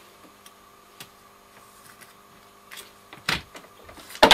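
Handling noise: a few faint clicks over a low steady hum, then a thump about three seconds in and two sharp, loud knocks near the end, as the mains plug and lead are set up for a safety-lamp test.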